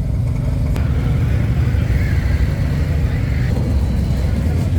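Motorcycle engines running at low revs in slow street traffic, a steady deep sound.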